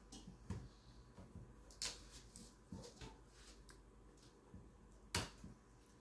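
Quiet handling noise of small kitchen items: a few light clicks and taps, with a sharper click about five seconds in, while the stand mixer is switched off.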